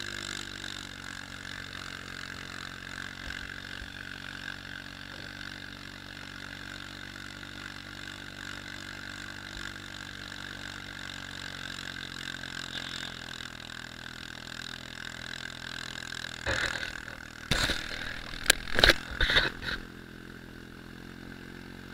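ATV engine running steadily while the quad rides along a snowy trail, its pitch shifting a little as it goes. A few loud knocks come near the end.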